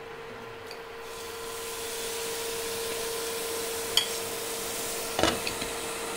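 Water sizzling and steaming on a hot iron tawa, a steady hiss that comes up about a second in: the steam that makes the kulcha puff. A sharp click near four seconds and a short knock about five seconds in, over a faint steady hum.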